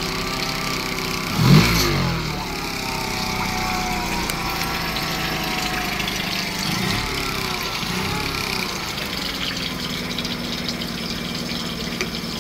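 Honda 8 hp two-cylinder four-stroke outboard motor running in a test barrel of water, churning the water. It revs up briefly about a second and a half in and swells slightly twice around seven to eight seconds; otherwise it runs steadily at a low speed.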